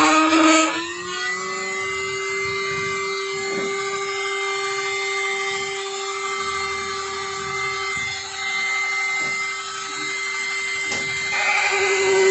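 A flexible-shaft rotary tool runs at high speed with a steady, high motor whine that climbs in pitch during the first second. The bit works against the inside of a plastic motorcycle fender, with small dips in speed. The sound gets louder and rougher near the end.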